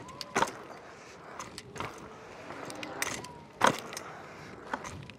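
Varla Eagle One 2.0 electric scooter landing after jumps off a curb, its hydraulic spring suspension taking the hits: two sharp clunks about three seconds apart, the second the louder, with smaller rattles and clicks between.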